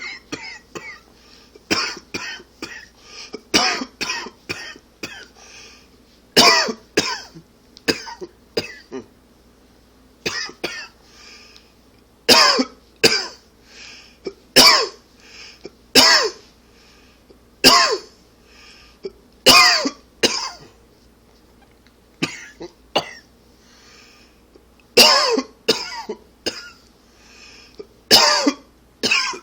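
A man coughing over and over, in short runs of several coughs and in single hard coughs a second or two apart. It is a dry, harsh cough, which the uploader puts down to allergies or smoking.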